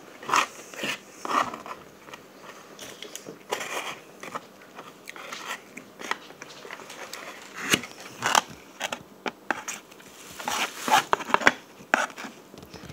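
Close-up eating sounds: biting and chewing food, with a plastic fork clicking and scraping against a styrofoam takeout box, in irregular bursts that grow busier in the second half.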